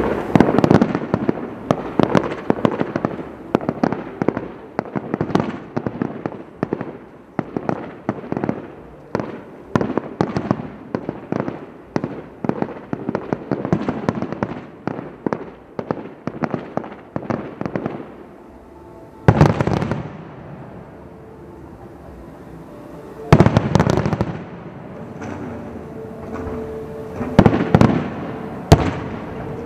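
Aerial firework shells bursting in quick succession: a dense barrage of bangs for most of the first eighteen seconds, then one loud boom followed by a lull, and further clusters of bursts in the last several seconds.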